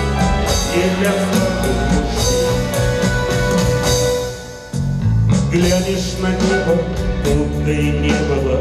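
Live song: a man singing to acoustic guitar, with a second guitar playing along. The music thins out briefly about four and a half seconds in, then comes back in full.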